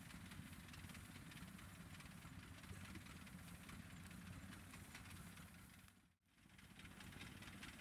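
Faint, steady low hum of a loaded rice-hauling cart's engine idling, with a light hiss over it. It drops out briefly about six seconds in.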